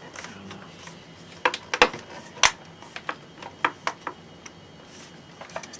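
Scattered clicks and knocks of hard plastic as a 15-inch LCD TV is handled and rocked on its flimsy plastic stand, with two sharper knocks near the middle.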